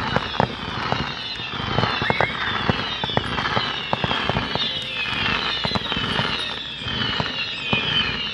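Aerial fireworks going off in quick succession: a dense string of pops and bangs with crackling. Many whistling shells overlap throughout, each whistle falling in pitch.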